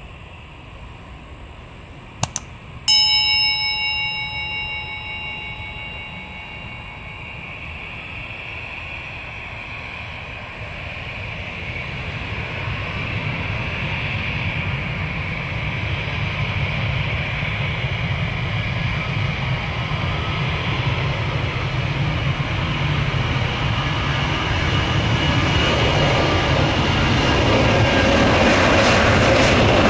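A sharp metallic clang about three seconds in that rings for a few seconds, then an arriving jet airliner's engine noise growing steadily louder as it approaches.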